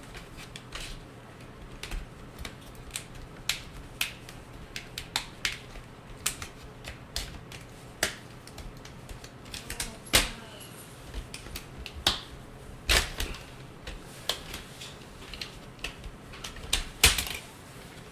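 Plastic screen bezel of an Acer E5-573T laptop being pried off, its clips clicking and snapping loose at irregular intervals, with a few louder snaps about ten, thirteen and seventeen seconds in.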